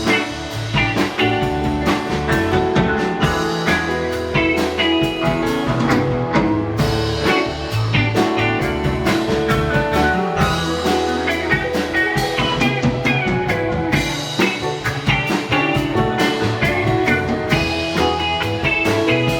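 A live rock band playing an instrumental jam, with electric guitar lines over bass and drum kit.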